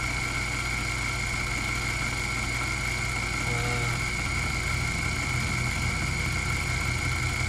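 Sherline CNC mill running with a steady high whine over a low hum, the hum shifting slightly about four seconds in.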